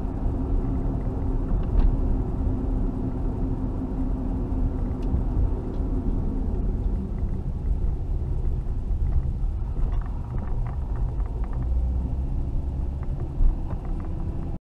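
Cab noise of a motorhome on the move: a steady low engine and road rumble, with the engine hum dropping away about halfway through as it slows.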